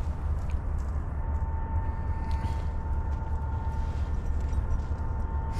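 Diesel freight locomotive running: a steady low rumble with a faint steady whine above it.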